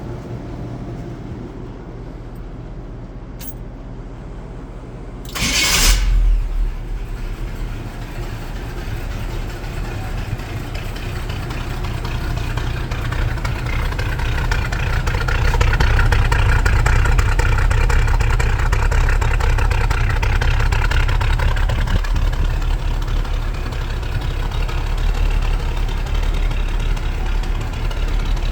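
V8 engine of a Toyota FJ45 Land Cruiser cranking and firing up about five seconds in, then idling steadily. It runs a little louder through the middle stretch.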